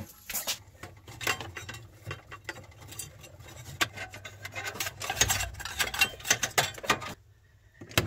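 Irregular clicks, taps and light knocks of hands handling metal brackets, plastic and wiring around a fridge's freezer evaporator coil, over a low hum. The sound drops out briefly near the end.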